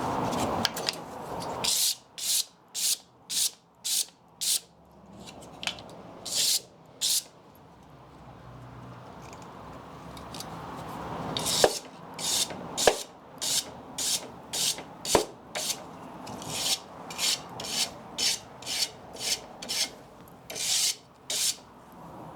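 Wood being abraded by hand in quick back-and-forth strokes, about two a second. The strokes come in two runs with a pause between, and a few sharp ticks fall early in the second run.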